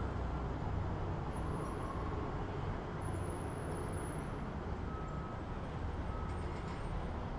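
City traffic ambience: a steady low rumble of road vehicles under a constant hiss of street noise.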